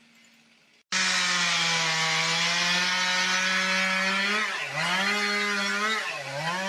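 Chainsaw starting abruptly about a second in and running at high revs, cutting wood; its pitch dips briefly twice as the chain bogs under load, then recovers.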